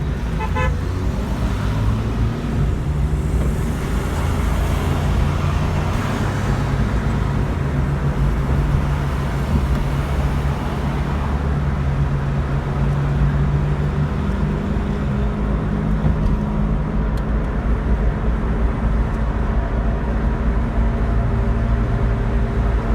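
Steady engine hum and road noise inside a moving car, with a single short beep about half a second in.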